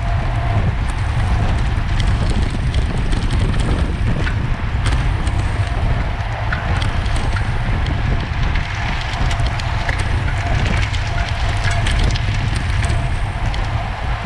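Wind buffeting the microphone in a loud, steady low rumble, with a continuous crackle and many scattered sharp clicks over it.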